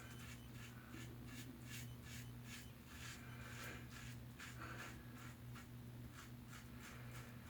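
Faint, quick scratchy strokes from wet shaving, several a second, over a steady low hum.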